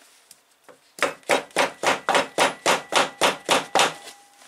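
A quick run of about a dozen hammer blows on wood, about four a second, starting about a second in.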